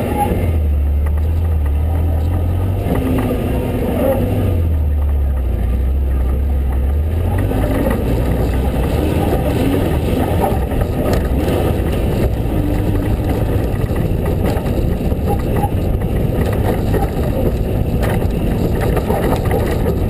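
Ford Ranger prerunner truck driving fast over a dirt trail: engine running under load with steady wind and road noise on a hood-mounted camera.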